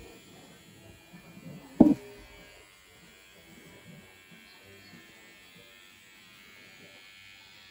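Cordless electric hair clippers running with a faint steady buzz while cutting a child's short hair. A single brief, loud thump about two seconds in.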